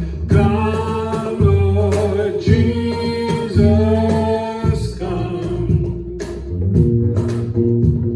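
Live worship band playing a song: a sung vocal line over guitar, bass and drums.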